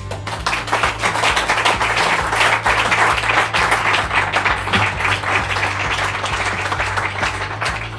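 Audience applauding, a dense steady clapping, over a background music track.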